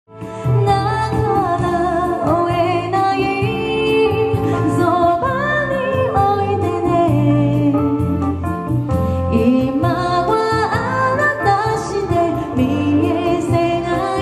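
A woman singing a slow melody into a microphone with electronic keyboard accompaniment, amplified through a PA, her held notes wavering with vibrato. The sound fades in quickly at the start.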